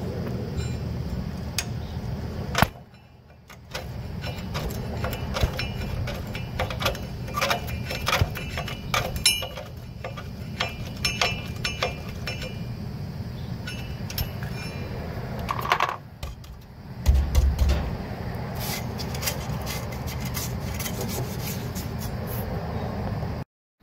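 Screwdriver working the star-wheel adjuster gear of a Ford E250's rear parking brake shoes: a run of irregular metallic clicks and clinks as the shoes are drawn in, with a dull thump partway through, over a steady low rumble.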